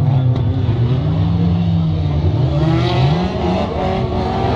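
Engines of several old race cars running hard on a dirt track, one rising in pitch as it accelerates about two and a half seconds in.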